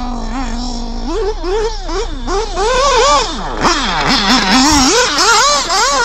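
Nitro RC buggy's FX glow-fuel two-stroke engine at high revs, holding a steady note for about the first second, then revving up and down in quick repeated rises and falls as the buggy accelerates and brakes.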